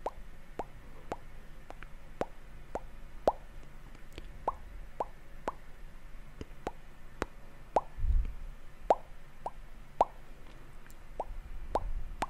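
Close-miked ASMR mouth sounds: a string of short, wet popping clicks at an irregular pace of about two a second. A low rumble comes in twice, about eight seconds in and near the end.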